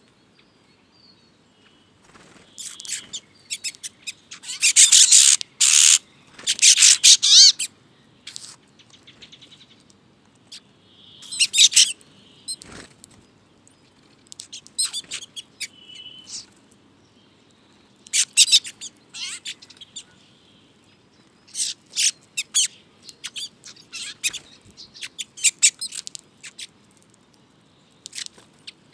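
A flock of finches, bramblings among them, calling and chirping while feeding on the ground. The short calls come in scattered clusters, loudest between about four and eight seconds in.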